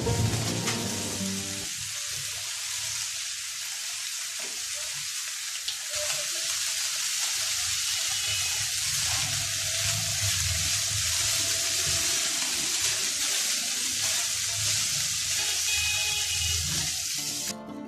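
Chicken, broccoli and carrots sizzling in hot oil in a frying pan over high heat while being stirred with a spatula: a steady hiss that cuts off just before the end.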